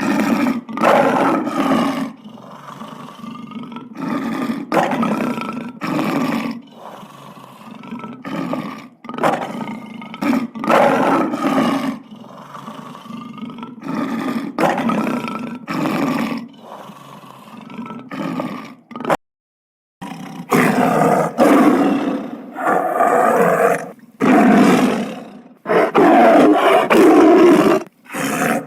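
Big cat roaring in a run of repeated calls about a second each, with a brief cut to silence about two-thirds of the way through before the calls resume.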